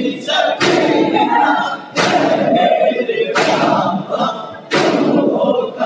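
A group of men chanting a noha in chorus while beating their chests in unison (matam), a sharp slap landing about every one and a quarter seconds.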